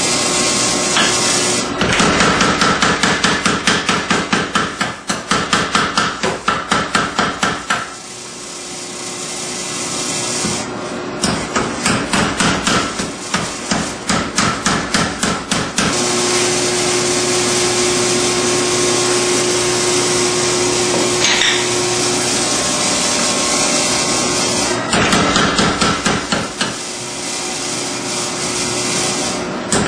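Power hammer striking red-hot steel in three rapid bursts of blows, about three or four a second, with a steady machine hum running between and under them.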